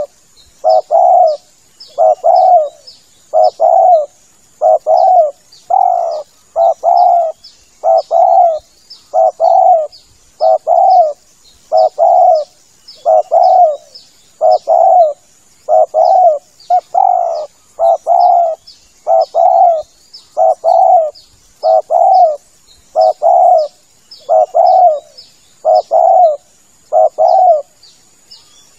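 Spotted dove (tekukur) cooing over and over: short, low coo notes, mostly in close pairs, repeating with brief gaps. This is a lure-call recording used to draw in other spotted doves.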